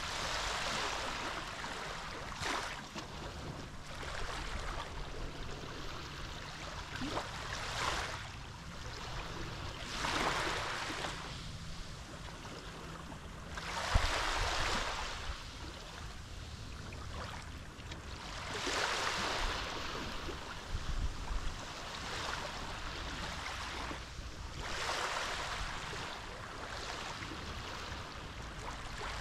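Small Mediterranean waves washing onto a rocky shore. Each wave swells into a hiss and falls away again every few seconds, with an occasional short, sharp splash.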